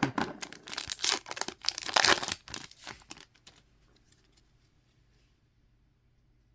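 A sealed hockey card pack's plastic wrapping being torn open and crinkled, a quick run of sharp tearing and crackling for about three seconds, then it stops.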